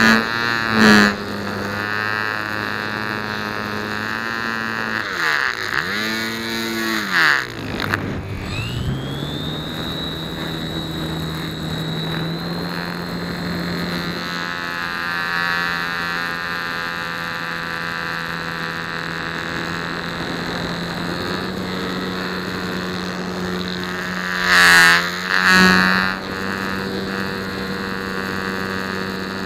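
Electric motor and propeller of a Flite Test Nutball foam RC plane, picked up by a camera mounted on the airframe, running as a steady buzzing whine. The pitch dips with the throttle around five to eight seconds in, then rises and settles. There are loud whooshes at the start and twice about twenty-five seconds in.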